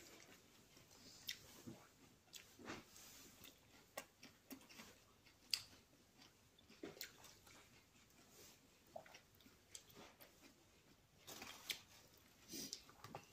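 Faint mouth-closed chewing of salad, with scattered sharp clicks of a fork tapping and scraping a glass salad bowl at irregular moments; the sharpest click comes about halfway through.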